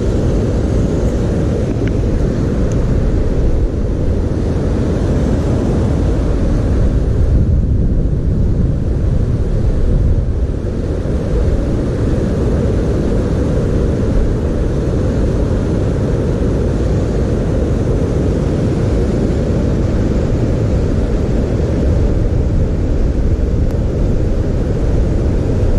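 Wind buffeting the camera's microphone outdoors: a steady, loud low rumble with no breaks.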